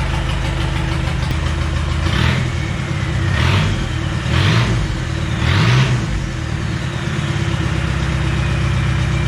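Land Rover Discovery 1's four-cylinder turbo-diesel idling just after a cold restart on freshly primed fuel, with no exhaust system fitted. It is revved briefly four times about a second apart between two and six seconds in, then settles back to a steady idle.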